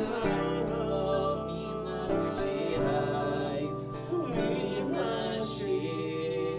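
Two men singing a melody without transcribed words over a nylon-string acoustic guitar and an electronic keyboard.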